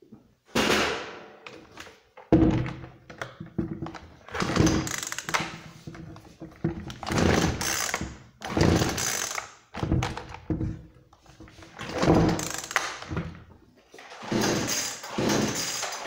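Husqvarna 236 chainsaw being pull-started: about seven hard pulls on the recoil starter, roughly every two seconds, each a rasping whirr of the cord and cranking engine that dies away, without the engine catching.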